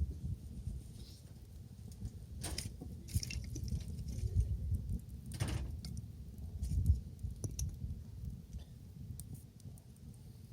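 Wood fire crackling with scattered small pops and two louder snaps, about two and a half and five and a half seconds in, over a low rumble.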